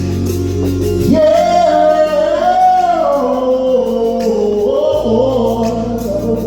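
Gospel song played live by a band: a solo singer comes in about a second in and holds a long line, bending it up and down in melismatic runs, over sustained bass notes.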